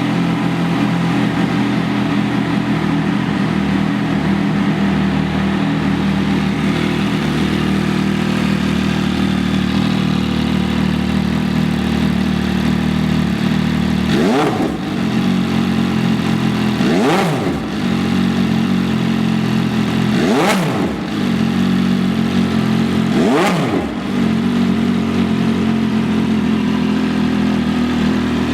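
MV Agusta Dragster RC's three-cylinder engine idling through an aftermarket slip-on silencer. About halfway through it is revved four times, about three seconds apart, each a quick blip that rises and drops back to idle.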